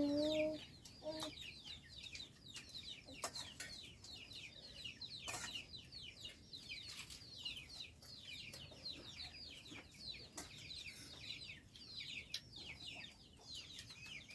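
Chicks peeping continuously in quick, high, falling notes, with a brief lower call at the start and a few sharp clicks.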